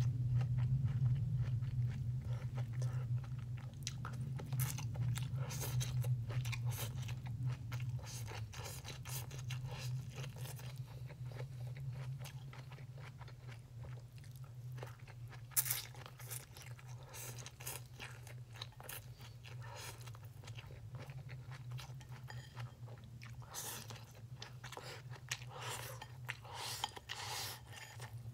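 A person chewing and slurping strands of baked spaghetti squash, with many small wet mouth clicks throughout. A low steady hum sits underneath, stronger in the first few seconds.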